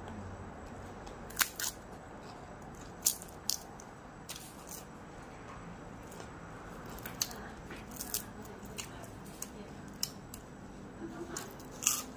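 Crisp dried fish being broken apart by hand and crunched while eating: a dozen or so sharp, short crackles at irregular intervals, the loudest about a second and a half in, about three seconds in, and near the end.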